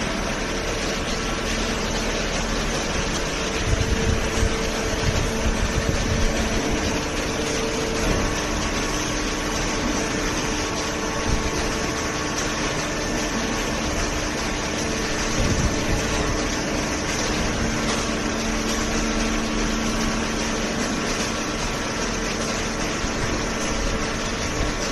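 Hydraulic power unit of a vertical baler running steadily, the electric motor and pump humming, with a few low knocks about four to six seconds in and again around fifteen seconds.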